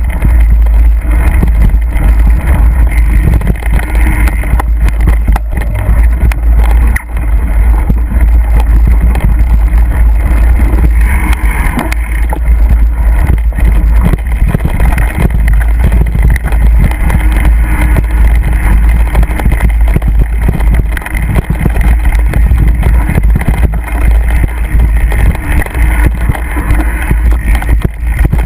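Mountain bike riding fast over a bumpy dirt trail, heard through a bike-mounted camera: a loud, continuous low rumble of wind and vibration on the microphone, with many short rattles and knocks from the bumps.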